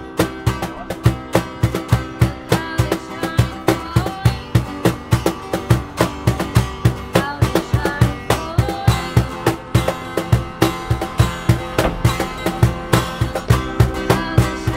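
Live busker music: guitar playing over a steady drum beat of about four hits a second.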